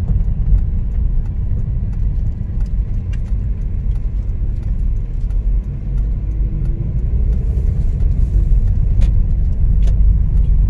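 Inside the cabin of a moving 2013 Mazda MX-5 Miata (NC3) with its 2.0-litre inline-four: a steady low engine and road rumble while cruising, with a few light clicks and rattles.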